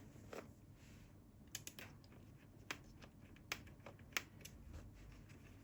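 Faint, irregular plastic clicks and taps as the laptop's bottom cover is worked loose from its clips by hand.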